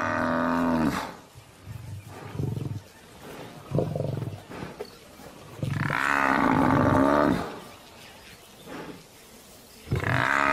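African buffalo bellowing in distress while lions pull it down: long drawn-out calls, one ending about a second in, another around the middle and a third starting near the end, with shorter low grunts between. It is a distress call that can bring the buffalo herd back to defend it.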